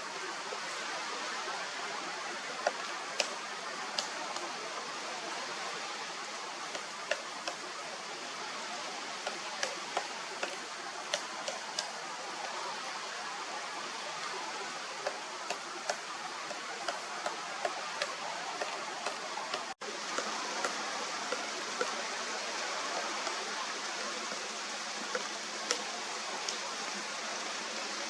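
Pileated woodpecker pecking at wood: scattered sharp knocks at irregular intervals, over a steady rushing background noise. The sound cuts out for an instant about two-thirds of the way through.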